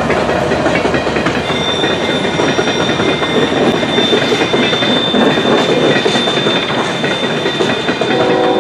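Canadian Pacific coal train rolling past close by, its coal cars' wheels clattering over the rails, with a thin steady high squeal from about a second and a half in. A train horn starts sounding near the end.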